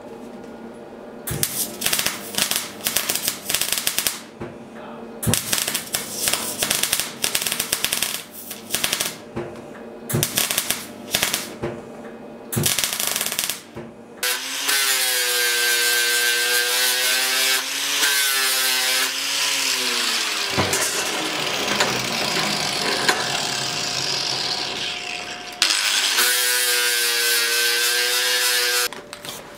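Rapid hammer blows on steel held in a bench vise, in short bursts through the first half. Then an angle grinder grinding the steel, its whine dipping in pitch under load, giving way for a few seconds to a steady hiss before the grinder whine returns near the end.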